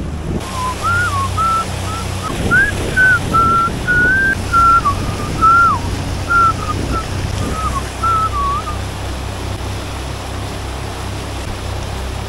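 A person whistling a wandering tune in short phrases for about eight seconds, over the steady drone of the boat's motor and the wash of water.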